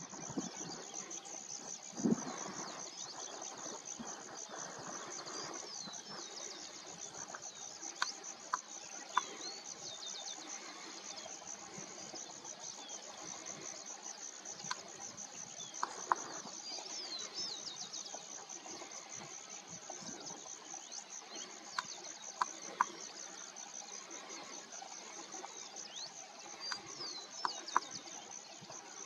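Steady, high-pitched, fast-pulsing chirr of insects, with thin whistled bird notes and scattered short sharp calls from a large flock of waterbirds. One low thump about two seconds in.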